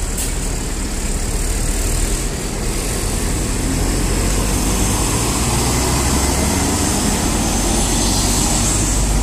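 Mercedes-Benz OH 1626 coach's diesel engine pulling away and driving close past, a steady engine sound with road noise that swells a little in the second half.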